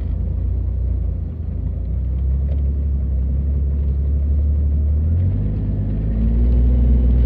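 Jeep Cherokee XJ driving, heard from inside the cabin: a steady engine and road rumble whose engine note shifts about five seconds in and grows a little louder near the end.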